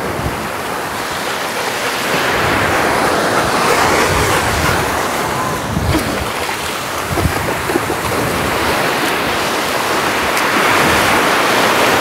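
Small ocean waves breaking and washing up a sandy beach, a steady rushing wash that swells about three seconds in and again near the end.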